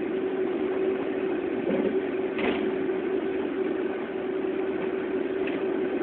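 Steady engine and road noise heard from inside a moving vehicle, with a brief knock about two and a half seconds in.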